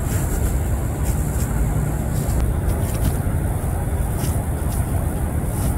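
Steady, low rumbling outdoor noise, with a few faint, short clicks on top.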